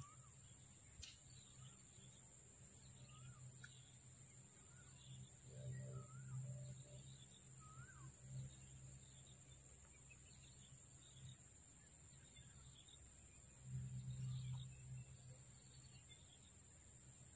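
Faint birdsong: a short rising chirp repeated several times, under a second apart, with other scattered chirps, over a steady high-pitched drone.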